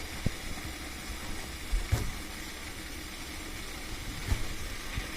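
Steady hiss of a momo steamer with water boiling underneath, with a few soft low knocks.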